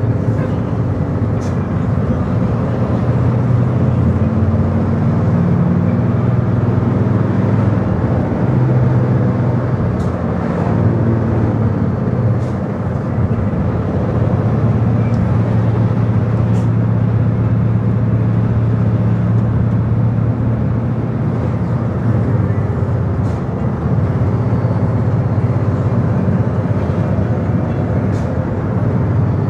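Vehicle engine drone with tyre and road noise, heard from inside the cabin; the engine's pitch steps up and down several times as it runs.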